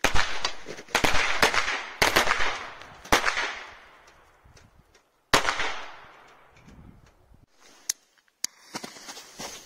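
Firecrackers exploding in snow: a run of loud sharp bangs about a second apart, then one more about five seconds in, each echoing away over about a second. Two small cracks follow near the end.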